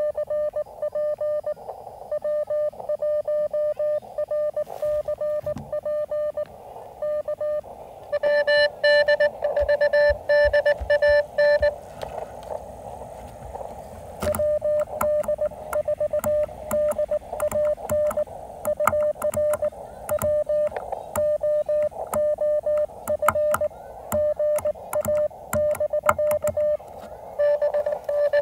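Morse code (CW) from a portable amateur radio transceiver: a single steady mid-pitched beep keyed on and off in dots and dashes, with receiver hiss in the gaps between characters. Faint sharp clicks run through the second half.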